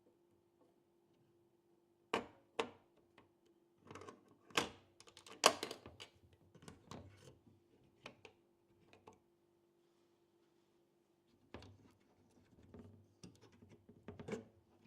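Hard clicks and knocks of computer hardware being handled and fitted together, a dozen or so scattered strikes, the loudest about five and a half seconds in, with a pause of a couple of seconds before a last cluster near the end.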